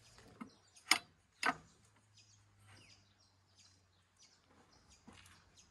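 Faint bird chirps over a quiet rural background, with two short sharp knocks about a second in, half a second apart.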